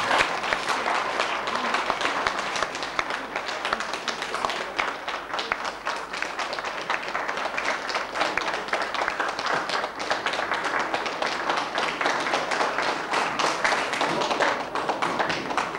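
Audience applauding: many people clapping together in a dense, steady patter of hand claps.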